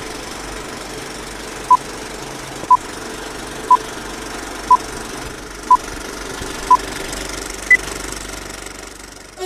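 Old-film countdown leader sound effect: a steady film-projector clatter with a short beep each second, six beeps at one pitch followed by a seventh, higher beep.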